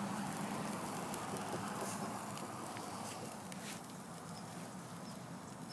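Hamburger patty sizzling on a grate over a lit charcoal chimney starter, with scattered faint crackles and pops as fat drips onto the coals.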